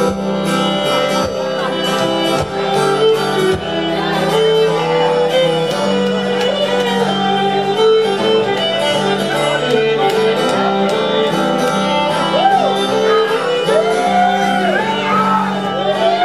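Fiddle and acoustic guitar playing an instrumental passage live, the guitar strumming under a bowed fiddle melody; in the last few seconds the fiddle slides up and down between notes.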